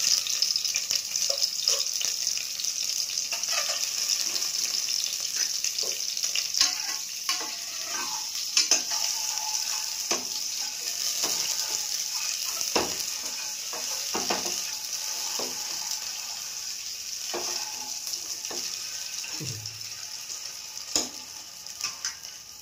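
Peeled hard-boiled eggs sizzling as they fry in oil in an open pressure-cooker pan, with a steel spoon clinking and scraping against the pan as they are turned. The sizzle eases off near the end.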